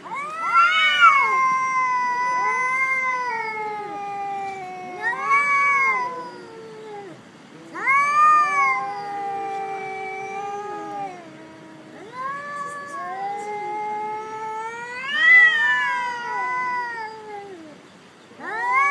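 Domestic cats caterwauling at each other in a face-off: a string of long, drawn-out yowls that waver up and down in pitch, sometimes two voices at once, with brief pauses between them. These are the warning yowls of two cats squaring up to fight.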